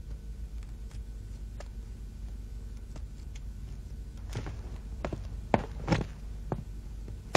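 A few footsteps and light knocks on a floor, starting about halfway through and spaced roughly half a second apart, over a low steady hum.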